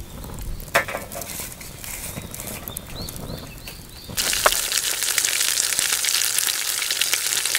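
Ice-cream-soaked bread frying as French toast in an iron frying pan over a charcoal fire. A knock comes about a second in, and loud sizzling starts suddenly about four seconds in.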